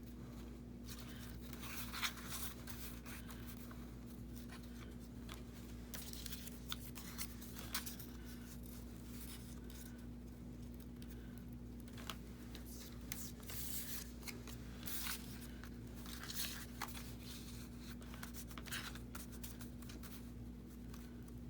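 Paper and card being handled on a desk: scattered short rustles and light taps, over a faint steady electrical hum.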